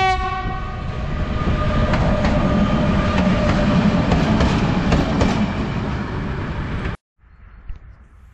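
The last moment of a locomotive horn, then a Traxx electric locomotive and a T448p diesel locomotive running past at close range, their wheels clacking on the rails. The sound cuts off abruptly about seven seconds in to faint outdoor background.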